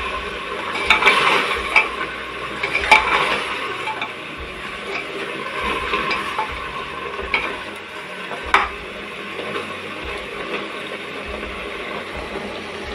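Mutton with ground onion and green chili paste sizzling as it fries in a metal pot, stirred with a metal spoon that scrapes and clinks against the pot every second or two.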